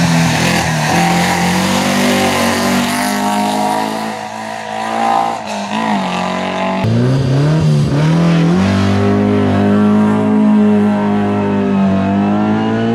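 Alfa Romeo 33 race car's flat-four boxer engine at full effort, its pitch climbing and dropping back at each gear change. About seven seconds in the sound changes to an engine held high in the revs, climbing again near the end.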